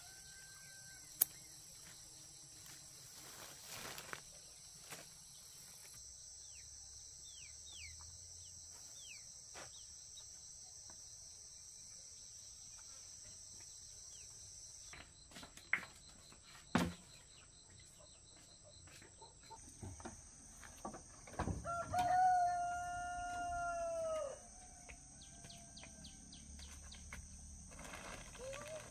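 A rooster crows once, a single long call about three quarters of the way in that rises, holds and falls away at the end. Under it runs a steady high-pitched hiss, with a few faint short chirps and scattered knocks.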